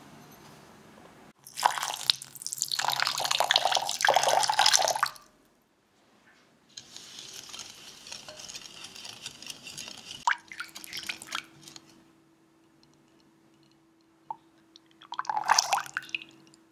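Water poured into a glass bowl of sugar, then a wire whisk stirring the sugar water against the glass, with a few clicks of the whisk on the bowl. Near the end, a short pour of rice syrup into the mixture.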